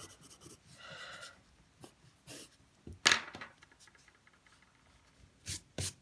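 Graphite pencil sketching on sketchbook paper in short, light scratchy strokes, with one louder knock about three seconds in.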